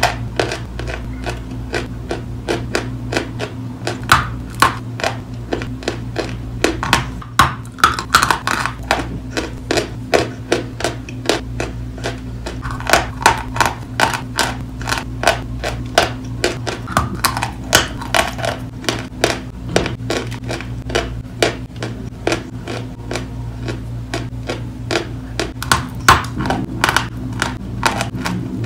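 Close-up chewing and crunching of wet chalk: a dense run of rapid, sharp crunches with louder bites now and then, over a steady low hum.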